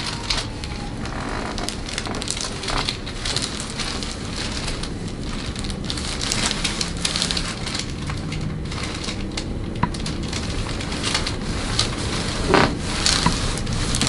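Close-up rustling and crackling of fingers rubbing and kneading over the skin of the neck and through the hair, a dense steady crackle with many small clicks.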